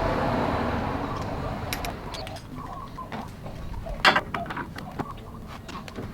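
Cordless power tool whirring as it runs a bolt during a motor mount swap, fading out over the first two seconds, then scattered clicks and a sharp metal knock about four seconds in as tools and parts are handled.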